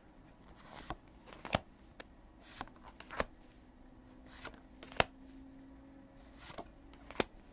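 Pokémon trading cards being flipped through by hand, each card slid off the front of the small stack with a brief papery swish or click, at uneven intervals of roughly a second.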